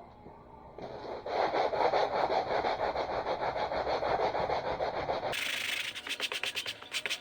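Sandpaper rubbing on a dried beaver hide in quick back-and-forth strokes, sanding the skin side to soften it. It starts about a second in, and after about five seconds it turns higher and sharper, with separate strokes at about four or five a second.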